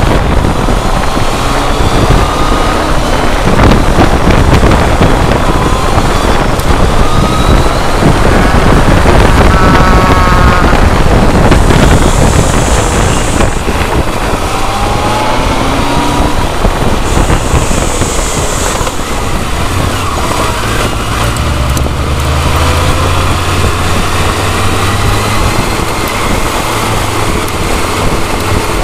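On-board sound of a BMW K1200R Sport motorcycle on the move: heavy wind rush over the camcorder's microphone with the engine note rising as it accelerates, then settling into a steadier, lower note over the last several seconds.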